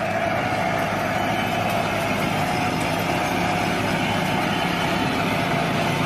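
Remote-control toy excavator running, a steady engine-like hum with a faint held tone.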